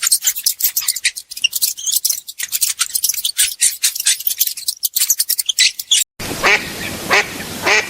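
A fast, irregular run of sharp clicks and chirps for about six seconds, then, after a cut, a duck quacking repeatedly, about two quacks a second.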